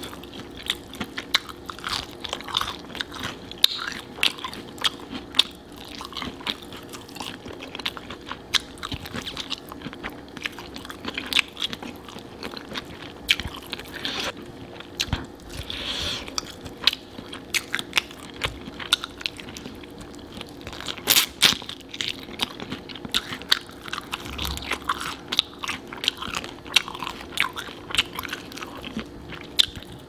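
Close-miked eating of sauce-coated fried chicken drumsticks: crunchy bites into the crispy coating and chewing, with many sharp crunches throughout.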